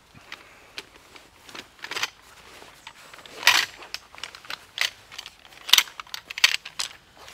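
Folding camping cot being unpacked: its fabric bed and carry bag rustling and scraping, and its bundled aluminium poles clinking and rattling, in irregular bursts of handling noise that are loudest about three and a half and six seconds in.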